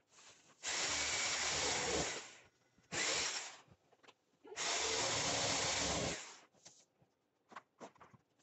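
Corded Skil jigsaw cutting a vent hole through vinyl plank flooring, running in three bursts: about a second and a half, then half a second, then another second and a half. A few light clicks follow near the end.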